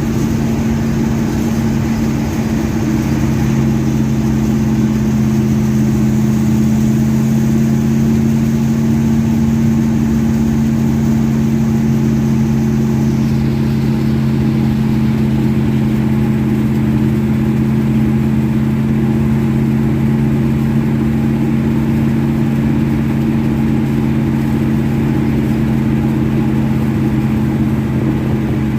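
1970 Chevelle engine on a freshly tuned Holley 850 double-pumper carburetor, idling steadily at a constant speed.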